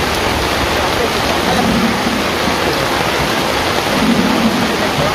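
Steady loud rushing noise, like rain, with faint voices about two seconds in and again near the end.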